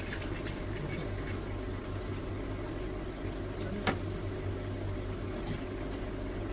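Steady low hum from a machine, with a few faint ticks near the start and one sharp click about four seconds in.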